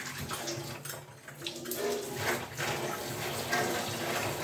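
Water rushing at high pressure from the opened valve on a home RO water purifier's thin input pipe: a steady running-water hiss.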